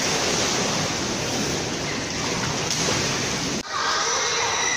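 Children splashing and swimming in an indoor swimming pool: a steady wash of churning water noise, which drops out for an instant about three and a half seconds in.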